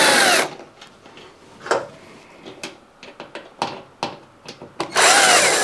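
Cordless drill-driver backing out two screws: a run of the motor whine, rising and falling in pitch, that stops about half a second in, a few light handling clicks, then a second run starting about five seconds in.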